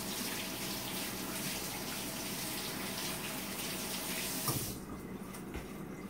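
Kitchen sink faucet running in a steady hiss while hands are washed under it. It is shut off with a light knock a little over four and a half seconds in.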